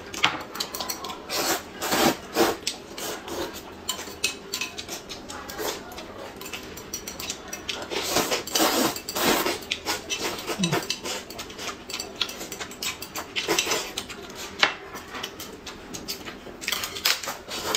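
Noodles being slurped and eaten, with chopsticks clicking and scraping against bowls; a run of short wet slurps and clicks.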